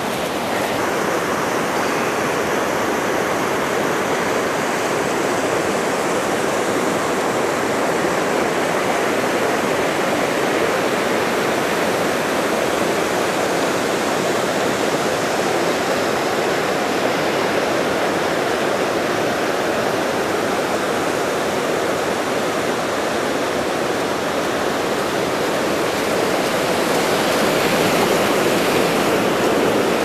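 Waterfall rushing steadily, a loud even roar of falling water that grows a little louder near the end.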